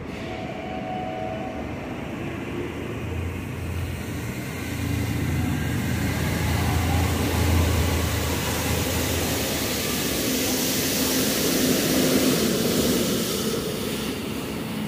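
New York City subway train running along the elevated track, a rumble that grows louder from about four seconds in and eases off near the end.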